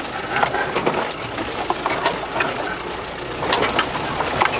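Inside an off-road vehicle driving over rough ground: engine and road noise throughout, with frequent knocks and rattles as the cab bumps along.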